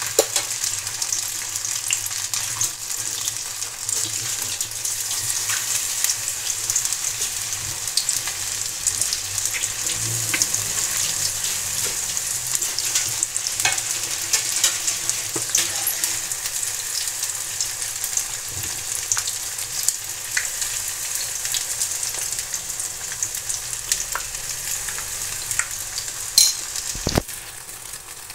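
Noodle pakoras deep-frying in hot oil in a wok: a steady sizzle full of fine crackling pops. A sharp clink and a knock near the end.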